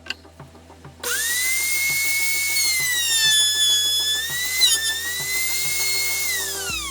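An electric power tool's motor whines at a high pitch. It starts suddenly about a second in, sags in pitch under load through the middle, then winds down near the end.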